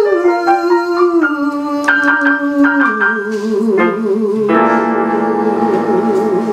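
A woman sings a long, drawn-out note into a microphone over piano accompaniment; the note steps down in pitch in the first few seconds and is then held with vibrato.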